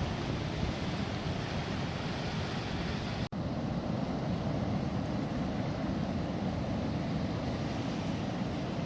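Steady rushing wind and surf noise, with wind buffeting the microphone; the sound drops out for an instant about three seconds in.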